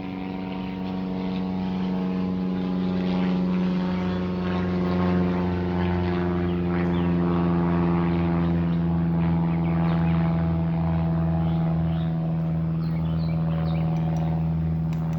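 Propeller airplane flying over, a steady engine drone that grows louder over the first few seconds and then holds, its pitch sagging slightly.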